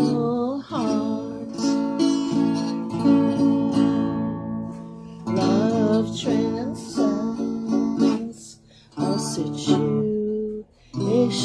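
A woman singing a slow song to acoustic guitar, her voice wavering in pitch over steady chords, with short breaks between phrases.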